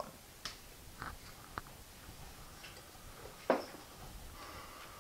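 Handling noise of a person moving at a computer desk: a few scattered light clicks and knocks as he turns in his chair and reaches for the mouse, with one louder knock about three and a half seconds in.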